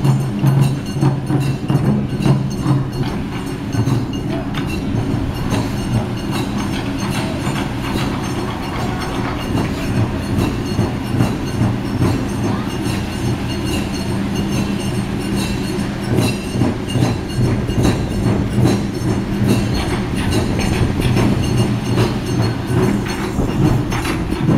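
Steady low machinery hum from the ship's engines as it lies moored alongside, a deep drone with a few held low tones under a rumbling noise.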